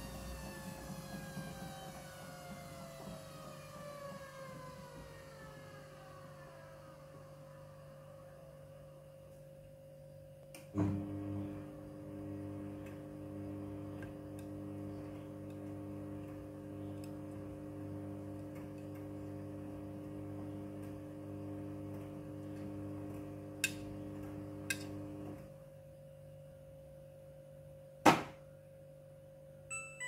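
Midea front-loading washing machine's drum motor winding down after the spin, its whine falling in pitch. After about ten seconds it starts again with a clunk and hums steadily while turning the drum slowly to spread the laundry, stopping a few seconds before a single loud click near the end as the door lock releases.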